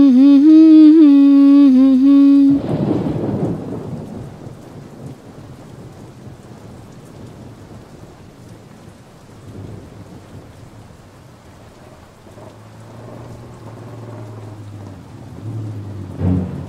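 A woman hums one long, wavering note that cuts off sharply as a loud thunderclap breaks and rumbles away into steady heavy rain. Near the end a motorcycle engine drones up through the rain.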